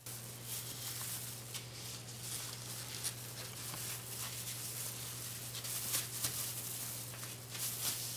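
Crinkly rustling with many small crackles as large wrapping leaves are handled, overlapped and smoothed flat on a counter by hands, one in a thin plastic glove, over a steady low hum.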